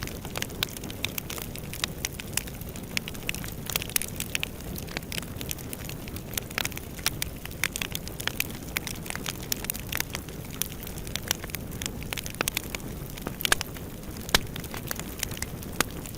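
Fire burning in a fireplace: a steady low rush of flames with many irregular sharp crackles and pops.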